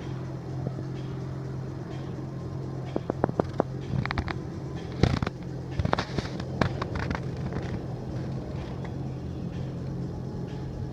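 Outdoor ambience: a steady low hum, with a cluster of sharp pops and cracks from about three to seven seconds in.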